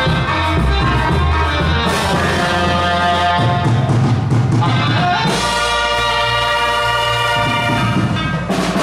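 Loud upbeat dance music with a drum beat; about halfway through it settles on long held chords, and it breaks off at the very end.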